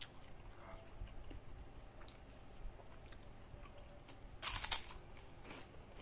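Close eating sounds: quiet chewing, then a loud crunch about four and a half seconds in as a bite is snapped off a crisp white kerupuk cracker, followed by a smaller crunch as it is chewed.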